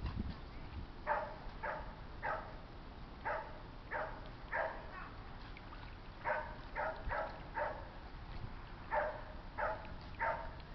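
A dog barking over and over in short runs of three or four barks, about a dozen in all, over a low, steady rumble.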